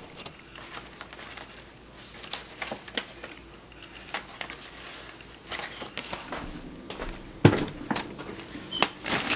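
Paper and file folders being handled and shuffled: scattered rustles and light ticks, with one louder knock about seven and a half seconds in.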